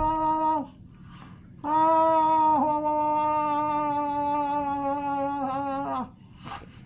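An elderly woman moaning on a steady, held note that drops off at the end. A short moan ends about half a second in, and after a breath a long one of about four seconds follows.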